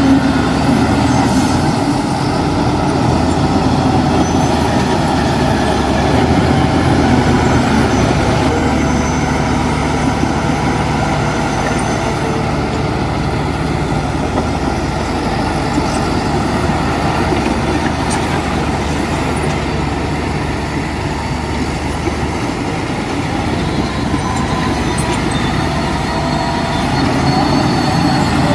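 Heavy diesel earthmoving machinery running steadily and loudly, its engine note shifting a few times.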